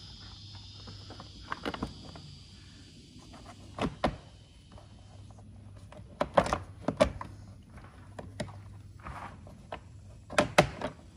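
Scattered knocks and clicks of hands handling the ATV's plastic body cover and fitting its screws, about nine sharp taps, the loudest a few in quick pairs.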